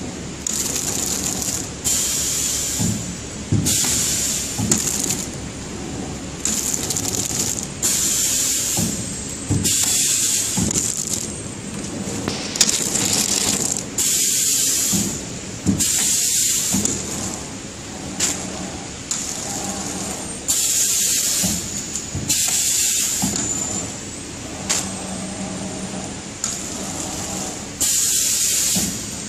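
ATM 700X horizontal flow wrapping machine running, with a short burst of hiss about every one to two seconds over a steady mechanical rattle.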